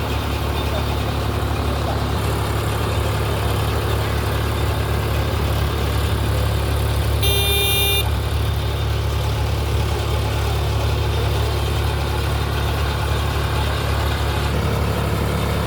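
Solis 5515 tractor's diesel engine running steadily under load, driving a baler, a constant low rumble. About seven seconds in, a short high tonal chirp lasting under a second.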